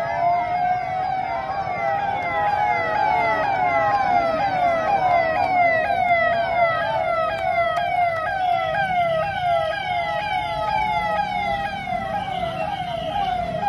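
Motorcade escort sirens sounding together: a slowly wavering wail under a fast yelp of repeated falling sweeps, about three a second.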